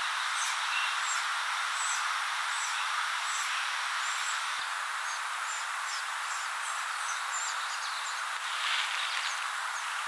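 Steady outdoor background hiss with many short, high, thin chirps scattered through it, a little louder near the end.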